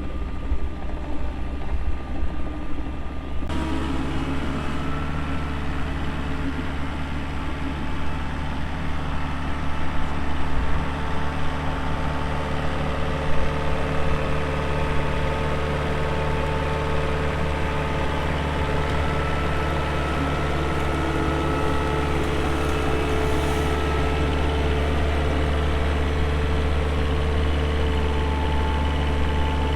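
Small diesel engine of a slow farm utility vehicle running steadily under way, a low even drone with an engine tone that stays level; the sound turns abruptly fuller and brighter about three and a half seconds in.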